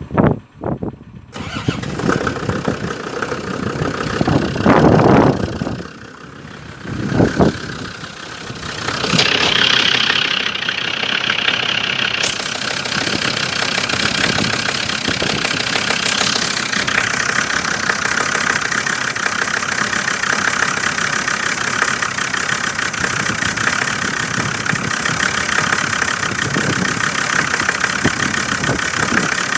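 Land Rover Discovery 2's Td5 five-cylinder turbodiesel cranking and starting from cold in frost. It runs unevenly through the first eight seconds, dipping about six seconds in, then settles into a steady idle from about nine seconds in. The owner reports it misfiring on a cylinder and knocking.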